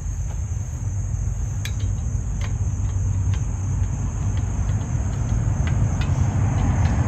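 Steady high-pitched chorus of crickets over a low, steady rumble, with a few scattered clicks from a hand tool working on steel conduit clamped in a vise.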